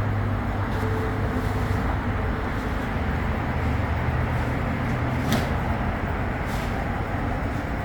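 AC refrigerant recovery machine running with a steady low hum as it draws the gas out of the car's AC system. There is a sharp click about five seconds in.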